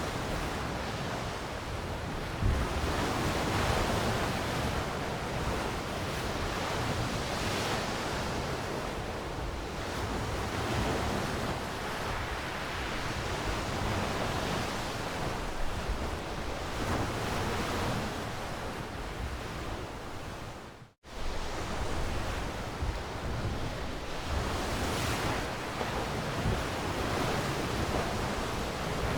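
Sea waves washing in slow, steady surges, the wash swelling and easing every few seconds. The sound drops out completely for an instant about two-thirds of the way through, then resumes.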